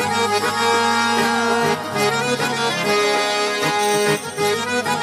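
Instrumental break of a romantic Hindi-Punjabi song: a held melody with a steady low note underneath, and no singing.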